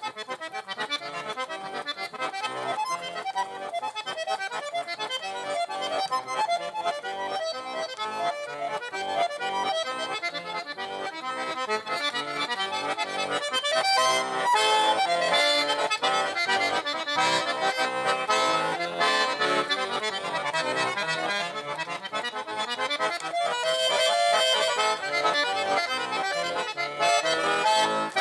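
Accordion playing an instrumental folk tune, a quick succession of notes with no singing.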